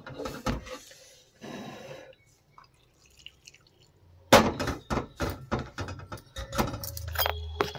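Milk poured into a stainless-steel bowl, then from about four seconds in a run of sharp clinks and ringing as the steel bowl and utensils are knocked together and handled.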